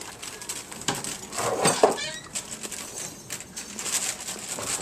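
Plastic bag crinkling and rustling as brownie mix is shaken out of it into a glass mixing bowl, with light clicks and clinks against the bowl.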